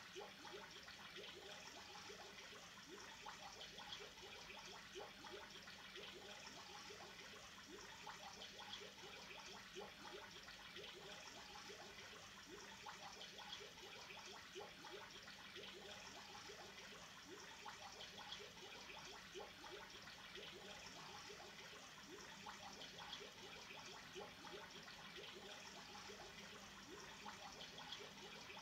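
Faint, continuous bubbling and trickling of aquarium water, with a steady stream of small bubbles.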